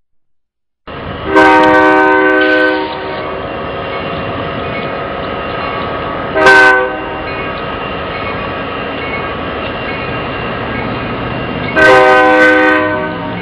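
Kansas City Southern freight train's diesel locomotive air horn: a long blast, a short blast about five seconds later, and another long blast near the end. Under it runs the steady rumble of the passing locomotives and cars.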